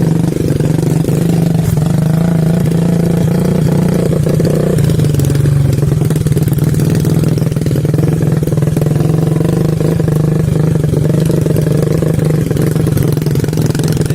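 Motorcycle engine running steadily while under way, its pitch dropping a little about five seconds in.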